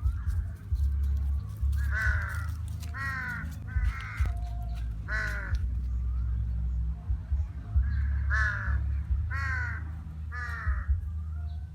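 Crows cawing: about seven harsh caws, four in a row and then, after a pause, three more, over a steady low hum.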